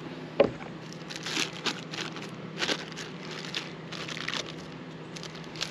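Clear plastic bag crinkling and rustling in short bursts as it is pulled off a new hand axe's head. A single sharp tap about half a second in is the loudest sound.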